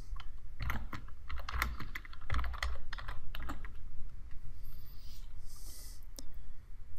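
Typing on a computer keyboard: a quick run of keystrokes lasting about three seconds, then one more key press near the end.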